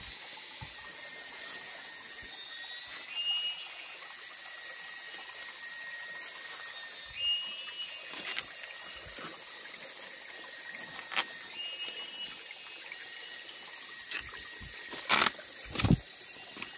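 River water running and trickling steadily, with a thin high whine above it that comes and goes. Two short thumps stand out near the end.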